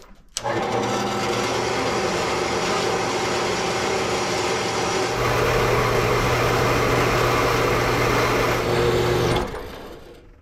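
Horizontal metal-cutting bandsaw switching on and running steadily while its blade cuts the threaded end off a black iron pipe. It gets louder and heavier about halfway through, then winds down and stops shortly before the end.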